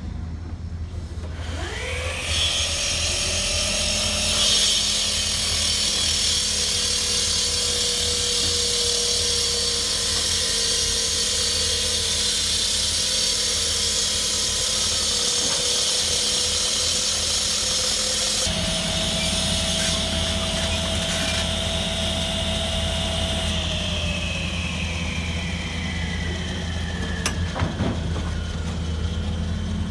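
Excavator-mounted Motocut pile-cutting saw spinning up and cutting through a precast concrete pile: a steady high grinding whine over the excavator's low engine hum. Its pitch rises as it starts, and a little past the middle it falls as the saw winds down, with a few knocks near the end.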